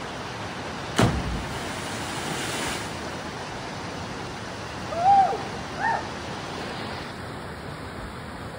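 A cliff jumper hitting the river from about 13 metres up: one sharp splash about a second in, over the steady rushing of a fast river current. About five and six seconds in come two short shouts.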